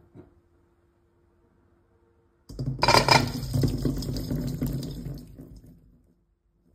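Water beads (orbeez) poured in a heap into a stainless steel bowl. A dense patter of many small, wet impacts starts suddenly about two and a half seconds in, then thins out and fades over about three seconds.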